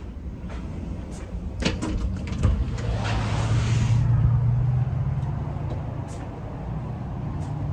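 A motor vehicle's engine running, its low hum swelling and easing, with two sharp knocks about two seconds in.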